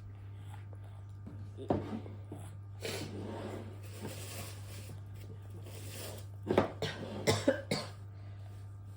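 A few short coughs: one about two seconds in, then several in quick succession near the end.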